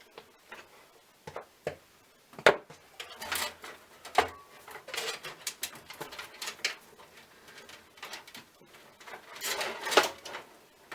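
Handling noises from fitting a power supply's 24-pin cable to a motherboard inside a PC case: scattered sharp clicks and knocks, the loudest about two and a half seconds in and again near the end, between stretches of rustling as the cables are moved.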